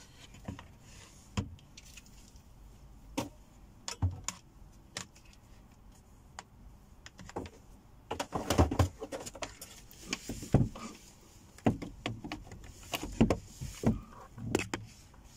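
Handling noise from a laptop and its charger being moved about: scattered clicks, knocks and light rattles. They are busiest about eight seconds in and again near the end.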